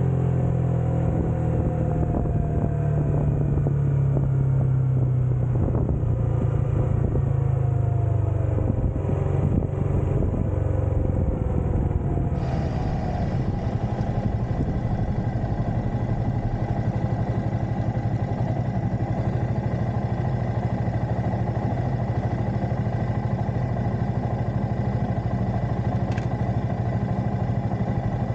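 Suzuki GSX-S150's single-cylinder engine slowing with its pitch falling, then settling into a steady idle from about halfway.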